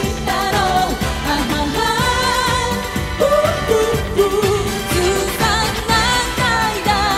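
Two women singing a J-pop song live into handheld microphones over a pop backing with a steady beat.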